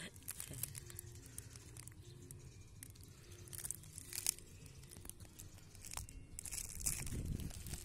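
Scattered crackles, crunches and rustles close to the microphone, growing into a louder rustling near the end, as of handling and footsteps on a bank of broken shells.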